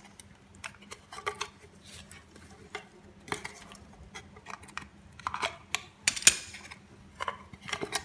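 Metal shears snipping and scraping at leftover plastic around a freshly drilled hole in a plastic junction box: irregular sharp clicks and crunches, with the plastic box knocking in the hands. The loudest snaps come a little past the middle.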